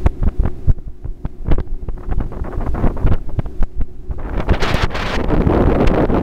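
Wind buffeting the microphone on an open boat deck, with irregular thumps. The rush grows denser and stronger about four seconds in.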